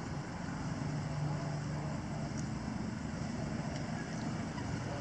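A motor vehicle engine running, a low steady hum over background noise.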